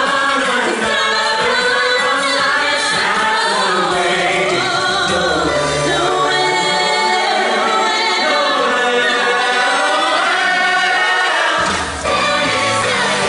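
A choir of men and women singing together with music. The loudness dips briefly just before the end, then the singing comes back with a fuller low end.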